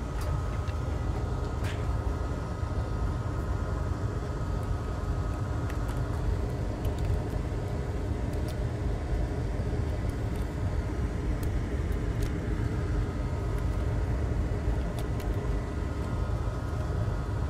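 Steady low background rumble with a faint steady whine, and a few faint light clicks as small parts are handled.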